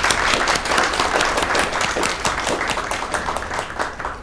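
A roomful of delegates applauding, many people clapping at once, to adopt a motion by acclamation. The clapping dies away near the end.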